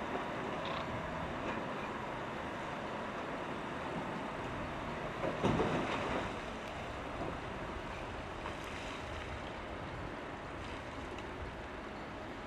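Volvo L260H wheel loader's diesel engine working as it pushes its bucket into a pile of blasted rock, with one louder burst of rock crunching and scraping about halfway through.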